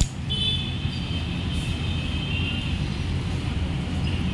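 Royal Enfield Super Meteor 650's parallel-twin engine idling steadily, with a sharp click at the very start as the ignition key switch is handled.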